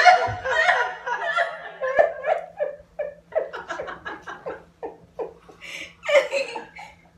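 Hard laughter: loud voiced bursts, then a run of short breathy 'ha' pulses, about four or five a second, that fade away, and a fresh burst of laughter shortly before the end.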